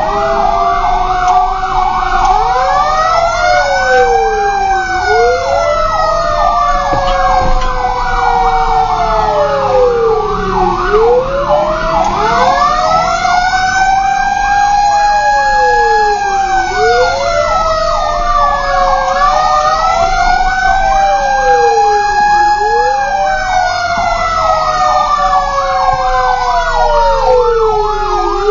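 Fire truck sirens heard from inside the cab: a wail rising and falling about every six seconds, overlapped by a rapid yelp warbling back and forth, over the low rumble of the engine.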